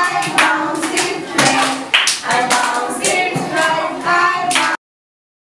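A class of young children and a teacher singing together and clapping along. The sound cuts off abruptly near the end.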